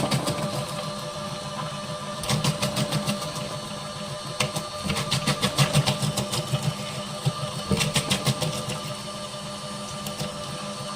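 Small electric onion dicing machine running with a steady motor hum, broken three times by bursts of rapid clicking and clattering from its cutting mechanism.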